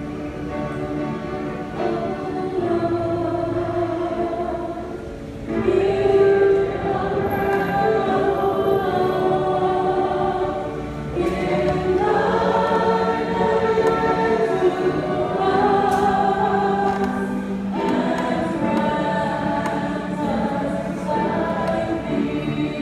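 Church choir singing a gospel hymn in harmony, in phrases of long held notes with short breaks between them.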